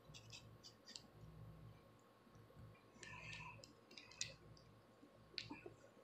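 Faint, scattered crackling clicks of long acrylic fingernails and a plastic rat-tail comb scratching and lifting flakes on a dry, dandruff-covered scalp, with a denser cluster about three seconds in.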